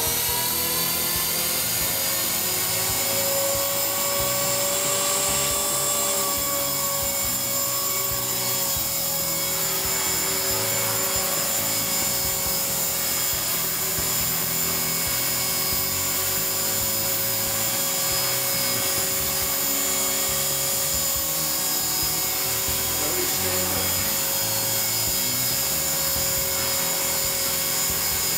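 Align T-Rex 450 Sport electric RC helicopter spooling up: the motor and rotor whine rises in pitch over the first few seconds, then holds at a steady high pitch as the main and tail rotors spin at speed.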